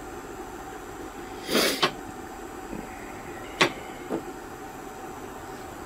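A few short kitchen knocks and clicks while cooking: a brief rustle ending in a click about one and a half seconds in, then a sharp knock about two seconds later and a softer one just after, over a steady background hum.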